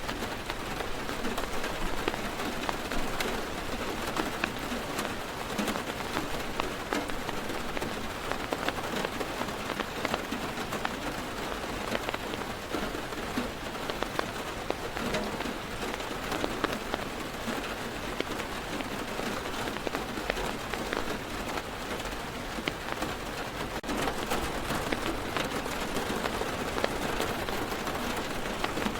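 Steady heavy rain drumming on a car's roof and windows, heard from inside the car, a dense hiss with many individual drop ticks.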